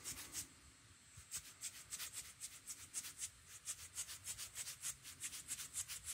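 Hand-held fine-mist spray bottle spritzing the watercolor paper in quick repeated squirts, about four a second, each a short hiss, with a brief break just before a second in.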